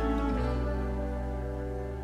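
Soft, slow instrumental background music with long held notes, gradually fading out.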